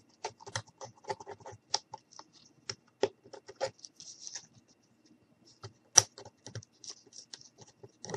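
Small irregular clicks, taps and scratching as hands peel a hot-glued plastic window piece off a handmade craft truck and handle the pieces on a wooden tabletop, with one sharper click about six seconds in.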